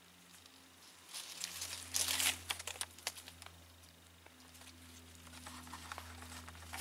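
Dry leaves and twigs rustling and crackling in a cluster of crisp crackles and snaps about one to three seconds in, then sparser crackling, picking up again near the end, over a faint steady low hum.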